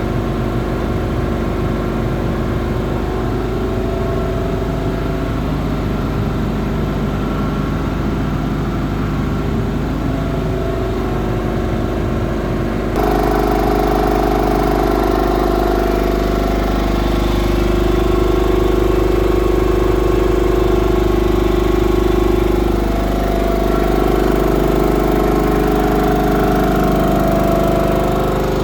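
Hatlapa V200 reciprocating marine air compressor running steadily on a test bench. About halfway through the sound changes abruptly and gets louder, with stronger steady tones.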